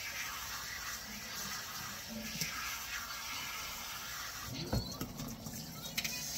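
Kitchen faucet's pull-down sprayer running steadily, water pouring through long wet hair and splashing into the sink. A brief low sound stands out about three-quarters of the way through.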